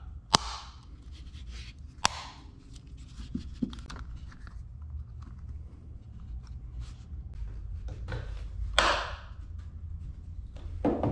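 Hand handling of a small plastic-and-metal mounting bracket: two sharp clicks in the first two seconds, then light ticks, knocks and rubbing, with a louder rustle about nine seconds in and another near the end. A steady low hum runs underneath.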